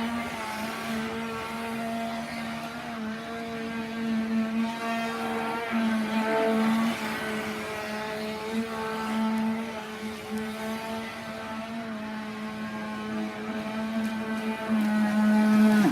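Traxxas RC boat's 20-turn electric motor running with a steady whine, its pitch wavering slightly with the throttle, growing louder just before it cuts off abruptly at the end.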